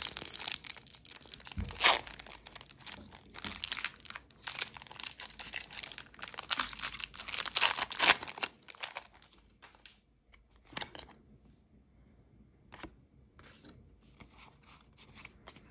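Foil wrapper of a Pokémon TCG booster pack being torn open and crinkled, with dense crackling for about nine seconds. After that come only a few scattered light ticks and rustles.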